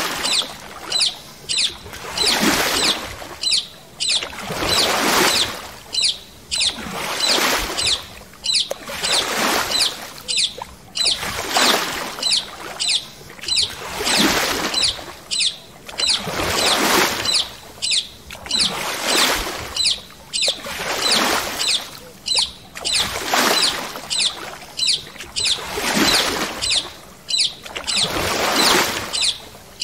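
Water swishing and splashing in a steady rhythm, a swell about every two and a half seconds, with birds chirping over it in quick short notes.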